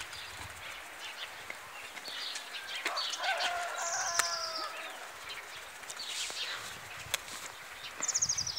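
Outdoor rural ambience with small birds chirping: a quick, high, descending trill around the middle and another near the end, a lower, longer call around three seconds in, and a few sharp clicks.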